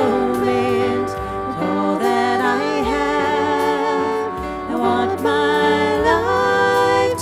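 Worship song sung with instrumental accompaniment: voices holding and gliding between notes over sustained low chords.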